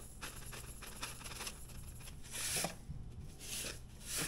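Sea salt poured from a canister's spout into a measuring spoon: a few short, soft hissing rustles of granules, the last three near the end.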